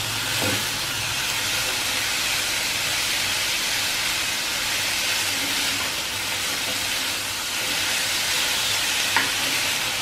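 Thinly sliced marinated beef sizzling steadily in hot oil in a nonstick frying pan as it is stir-fried with chopsticks and a wooden spatula. A brief tap near the end.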